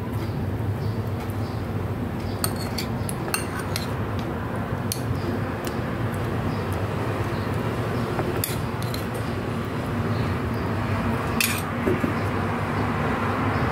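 A metal spoon clinking and scraping against a stainless steel bowl and dishes as food is served, a handful of sharp clinks a second or more apart, the loudest a couple of seconds before the end, over a steady low hum.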